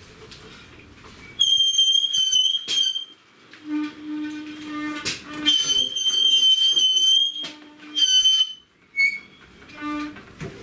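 Rear brake of a Yamaha YBR125 squealing in several high-pitched bursts a second or two long, with a lower, steady squeak between them as the brake drags. The brake shoes squeak badly enough that the owner is about to clean them.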